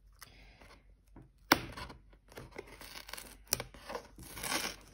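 Fingers scratching and picking at the edge of a sealed cardboard box, working at the seal with rustling and tearing. There is a sharp snap about a second and a half in and another near three and a half seconds.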